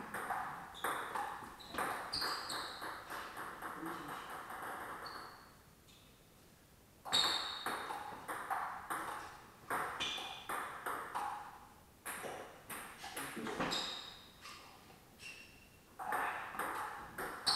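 Table tennis rallies: the celluloid-type ball clicking back and forth off the bats and the table in quick runs of sharp ticks. There is a short pause about six seconds in, and more brief breaks between the later rallies.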